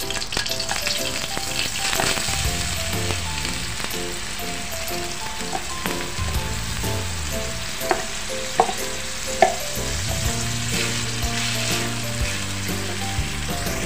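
Blended spice paste sizzling in hot cooking oil as it is poured into the pan and stirred with a wooden spatula, with a few sharp knocks about eight to nine and a half seconds in. Background music plays underneath.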